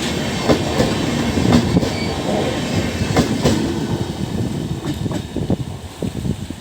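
Passenger train coaches rolling past, their wheels clacking over the rail joints with a steady rumble. The sound fades toward the end as the train moves away.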